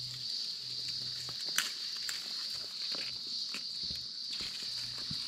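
Steady high-pitched drone of insects in the bush, holding one pitch throughout, with scattered light clicks and crackles over it.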